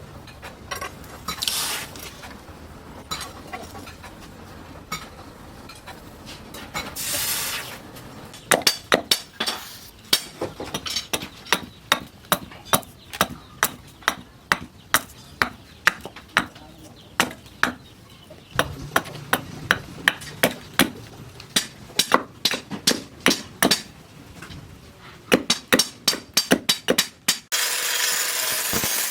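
Hand hammer striking steel on an anvil while forging a knife blade, a steady run of sharp ringing blows about two a second. Near the end it gives way to a steady rasping noise.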